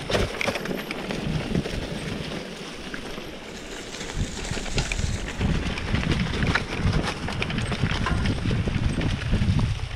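Mountain bike riding down a leaf-strewn dirt trail: wind buffeting the microphone and tyre noise over the ground, with frequent rattles and clicks from the bike over bumps. It eases off for a moment a couple of seconds in, then gets louder again.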